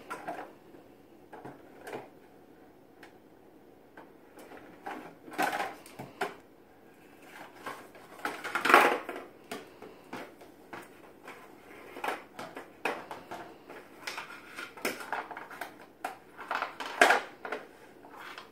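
Kitchenware clattering and knocking in irregular bursts as a toddler rummages through a low kitchen cupboard. The loudest clatter comes about nine seconds in, with another run of knocks near the end.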